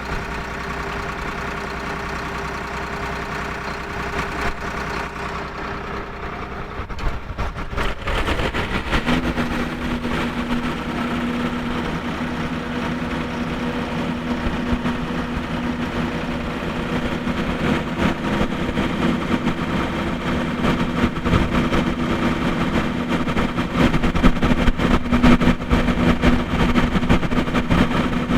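Drill rig's engine running steadily, then revving up about eight seconds in and holding at a higher speed, with a rapid clatter of knocks from the working rig over it.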